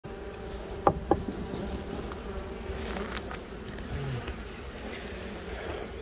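Honeybees from a wild colony being cut out of a crawl space, buzzing steadily as a swarm. Two sharp knocks come about a second in.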